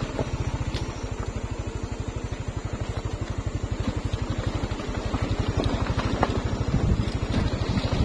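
A motorcycle engine running at low revs with a rapid, even low beat, and a few sharp knocks along the way.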